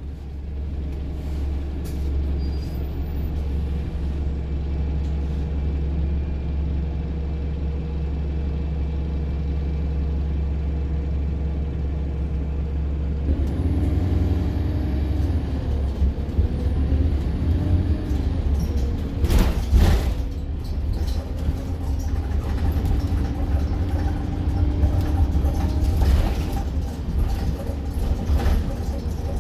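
Interior sound of a diesel service bus: the engine runs steadily, then about halfway through the bus pulls away, its engine note rising and falling with a faint high whine. A brief loud hiss or knock comes a few seconds later.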